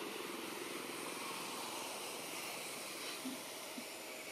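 Steady outdoor background hiss, with two faint ticks a little over three seconds in.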